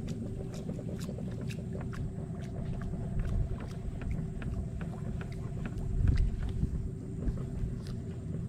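Low rumble of wind and river water around a small boat, with a faint steady hum underneath and scattered light clicks and taps.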